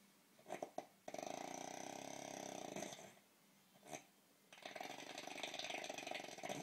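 A sleeper snoring in long, rattling breaths of about two seconds each, with short snorting puffs between them.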